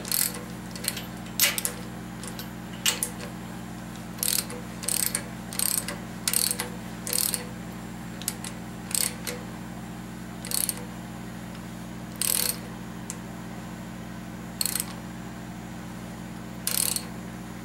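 Ratchet wrench clicking in short, irregular bursts as the rocker arm nuts are snugged down while setting the valves to zero lash on a 5.7 V8. A steady low hum runs underneath.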